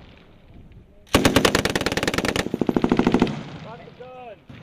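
Belt-fed machine gun firing one long burst of rapid shots, lasting about two seconds and starting about a second in.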